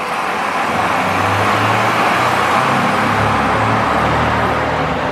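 A road vehicle's engine running with a steady low hum, over a broad rushing noise.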